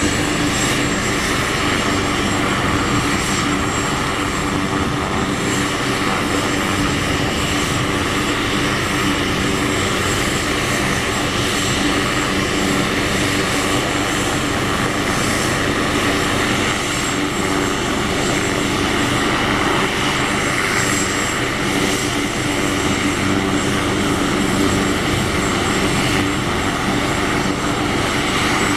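AgustaWestland AW139 helicopter running on the ground with its rotors turning. Its turbines and rotors make a steady noise with a thin high whine, holding at one level throughout, before lift-off.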